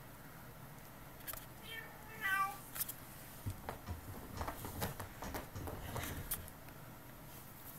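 A kitten gives a short, high meow about two seconds in. Then comes a run of irregular scratching and rustling as it claws and bats at a button-tufted fabric chair.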